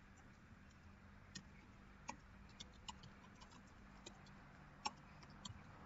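Faint, irregular clicks of keys being typed on a computer keyboard, over a faint steady hum.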